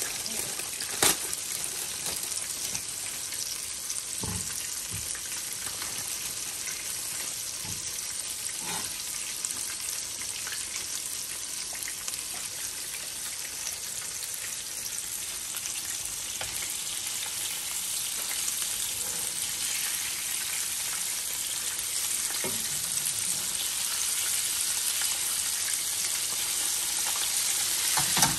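Chicken frying in hot oil in a frying pan: a steady sizzle, with a few clicks and knocks of utensils against the pan, a sharp one about a second in.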